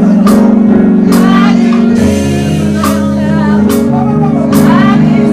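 Live gospel music from a church band: held keyboard chords with a sung melody over them, and sharp percussion strikes about once a second.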